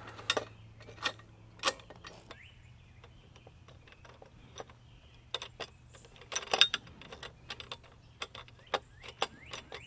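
Scattered light clicks and clinks of metal hardware being handled and fitted on a chainsaw mill, with a busier cluster of clicks about six and a half seconds in, over a faint steady low hum.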